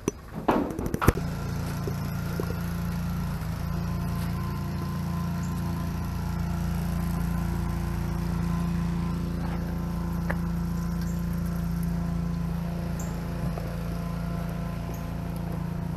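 A few knocks, then a steady motor hum at one constant pitch that starts about a second in and holds unchanged.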